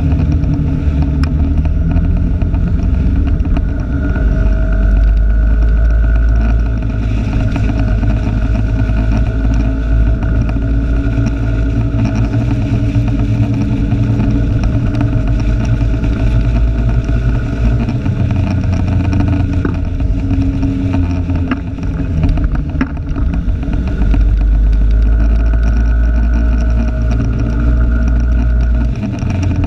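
Motor vehicle engine running steadily on the move, its pitch drifting up and down with speed, with heavy low rumble, heard from a camera clipped to the rear-view mirror.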